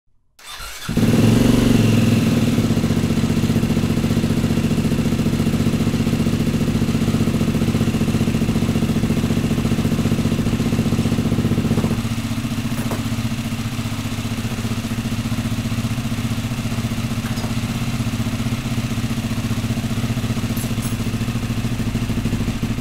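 KTM SX-F dirt bike's single-cylinder four-stroke engine firing up on its first start after a rebuild. It catches straight away and runs at a fast idle, then settles to a lower, steady idle about halfway through.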